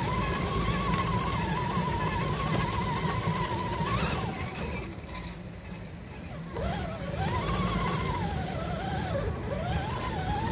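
Whine of an RC rock crawler's electric motor and gearbox, its pitch wavering up and down with the throttle, over a rumble of tyres rolling on loose gravel. About four seconds in there is a sharp knock. The whine then drops away for a couple of seconds and comes back with quick rises and falls in pitch.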